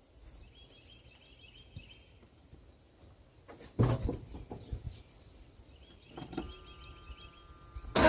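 Quiet, broken by a few clunks from the 1982 GMC pickup's door and cab as someone gets in to start it, then a steady buzzing tone for about a second and a half near the end.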